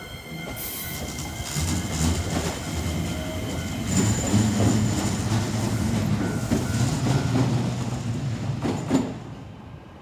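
Shizuoka Railway A3000 series electric train running past over the level crossing: its wheels rumble and clack over the rails, loudest from about four seconds in, then fade as the last car clears. There is a sharp clack near the end.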